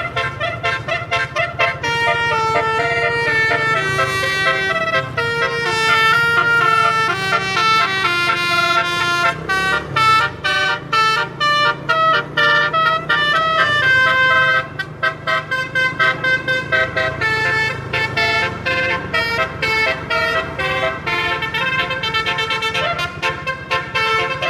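Tunggal Jaya bus's 12-note telolet multi-tone air horn playing a long melodic run of quick notes, turning choppier, with short gaps between the notes, in the second half. A low rumble runs underneath.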